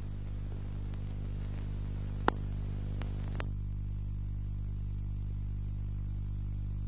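Steady low electrical hum with a light hiss on an old film soundtrack, with one sharp click about two seconds in and two fainter clicks a second later; the hiss drops away soon after.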